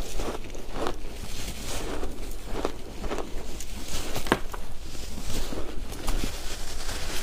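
Close-up chewing of shaved ice: a run of irregular crunches, about one to two a second, with one sharper crack about four seconds in.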